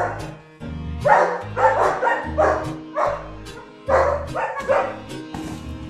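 German Shepherd dogs barking, a string of sharp barks about half a second apart, over background music with a steady bass line.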